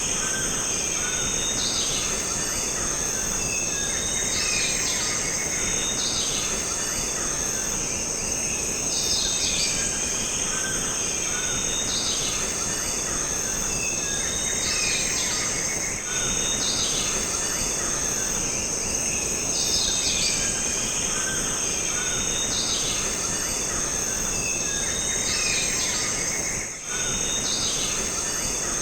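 Jungle ambience: a steady, high-pitched insect drone with birds calling over it. The same set of calls comes round again about every ten seconds.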